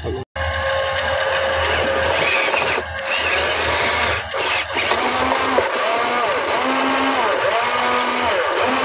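Small electric motor and gearbox of a radio-controlled dump truck whining as it drives, rising, holding and falling again about once a second as the throttle is worked.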